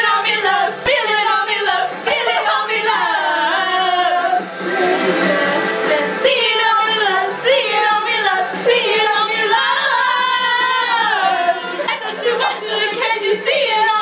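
A group of girls singing together without instruments, several voices overlapping and wavering in pitch.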